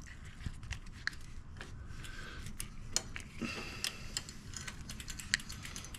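Irregular light clicking and ticking from metal bicycle parts and tools being handled during repair work.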